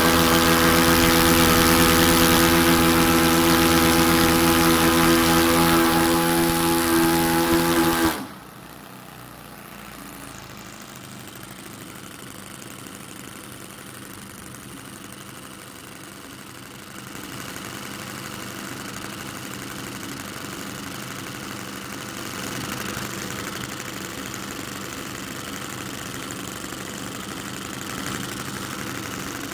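Two OS Max FS40 Surpass four-stroke glow engines on a twin-engine RC model running at high throttle with a steady pitch, then cut back all at once about eight seconds in to a much quieter idle that picks up slightly later on.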